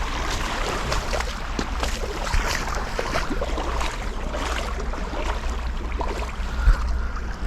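Water splashing and churning in many small irregular splashes, over a steady low rumble of wind on the microphone.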